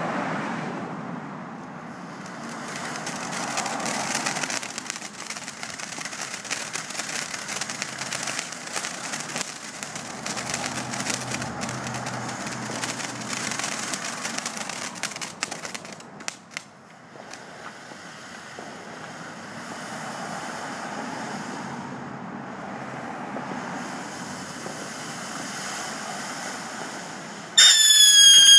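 Ground firework fountain hissing and crackling steadily as it sprays sparks. About a second before the end, a whistling firework gives one loud, slightly rising whistle, the loudest sound here.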